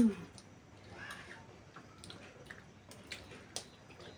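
Quiet eating sounds of noodles and fried chicken: faint chewing with scattered small clicks of forks and lips. A short voice sound falling in pitch comes right at the start.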